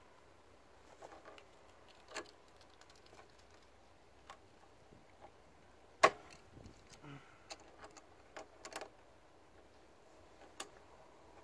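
Multigrip pliers clicking and knocking on the hose clamp at the turbo outlet pipe as it is worked loose: scattered light clicks, with one sharp knock about six seconds in.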